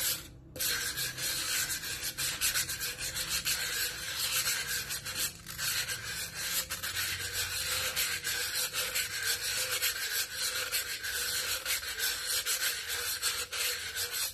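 Sandpaper rubbed back and forth over the freshly cut rim of a green glass bottle, a continuous rasping scrape with a brief pause just after the start. It is dulling the sharp cut edge of the glass.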